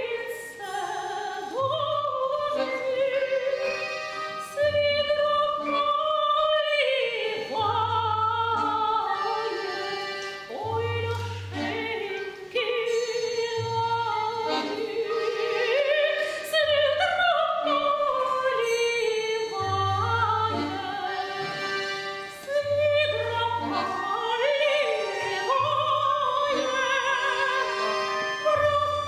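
A woman singing a Russian folk song with an orchestra of bayans and accordions, the reeds holding chords under her melody and short low bass notes recurring every couple of seconds.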